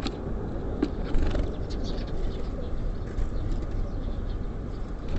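Small songbirds at a feeder, such as tits and sparrows, giving short faint chirps, with a few sharp taps, over a steady low rumble of city traffic.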